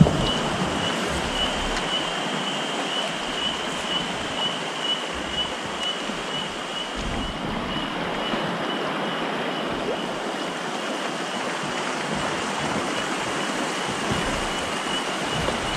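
River water rushing over rapids, a steady even rush, with a steady high tone that pulses lightly running through it.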